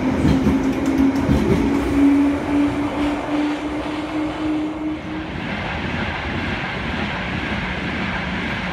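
London Underground 1972 Stock tube train pulling out, its traction motor whine rising in pitch over heavy wheel rumble. After about five seconds the whine stops and a steadier, slightly quieter train rumble with a low hum takes over.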